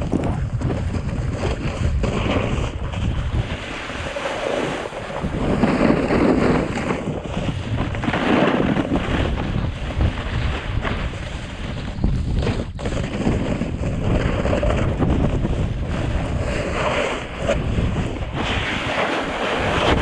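Wind buffeting the microphone over the hiss and scrape of a rider sliding fast over snow, the noise swelling and easing in surges.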